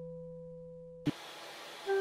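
A steady electronic hum-and-tone from a logo intro fades slowly, then cuts off about a second in with a short click. Faint hiss follows, and background music with sustained notes begins near the end.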